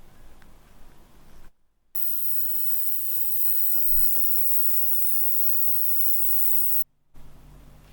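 Light handling clicks, then after a cut a steady jet of hissing spray or blown air over a low motor hum, lasting about five seconds and cut off abruptly.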